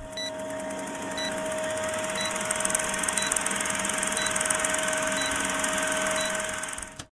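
Old film projector sound effect behind a countdown leader: a steady mechanical whirr and hiss with a constant hum, a short tick about once a second, cutting off suddenly near the end.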